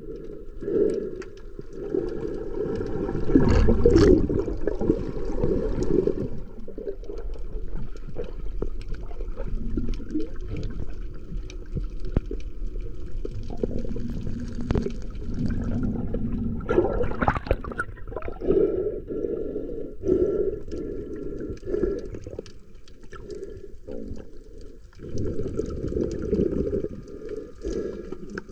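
Muffled water sloshing and gurgling heard through a camera held underwater, swelling and fading, with a few sharp knocks.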